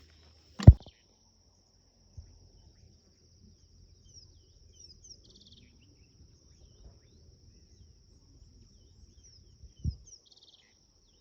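Crickets trilling steadily at a high pitch, with a few short bird chirps. A sharp thump comes about a second in, the loudest sound here, and another near the end.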